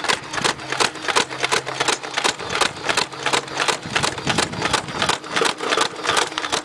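Nerf Vulcan EBF-25 blaster firing in full-auto, its electric motor cycling the belt-fed bolt in a fast even stream of clicks, about five shots a second, over a faint motor hum.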